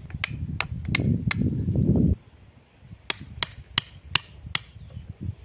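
Hammer blows on a steel tube pin set into a recycled-plastic railway sleeper: a run of four sharp metal strikes, a pause of about a second and a half, then five more at about three a second. A low rumble sits under the first run and stops about two seconds in.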